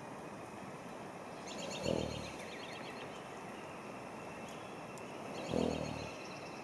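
A wild gelding horse snorts twice, each a short low snort, about three and a half seconds apart. Faint bird chirps sound around the first snort.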